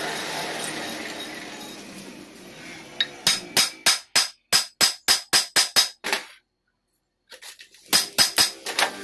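Metal lathe with a four-jaw chuck running down to a stop, then a rapid run of sharp, ringing metallic clinks, about three to four a second, from a steel chuck key knocking against the chuck and the steel die it holds; after a brief break a few more clinks come near the end.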